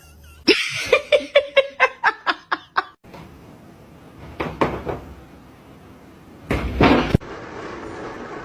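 A person laughing in a quick run of short bursts, followed a few seconds later by a loud thud.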